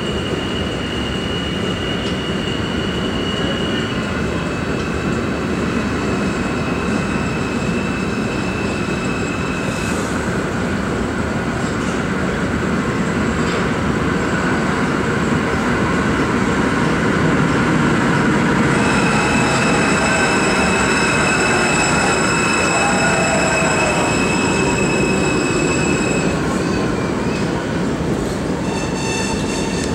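New York City Subway Kawasaki R160B train pulling into an underground station and slowing along the platform: a steady rumble of wheels on rail with a high whine. The whine drops a step in pitch about four seconds in, fades about ten seconds in, and comes back for several seconds past the middle.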